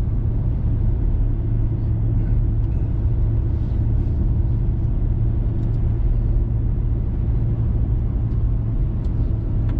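Steady engine and road rumble of a diesel four-wheel-drive pickup truck cruising up a mountain road, heard from inside the cab, with a constant low hum.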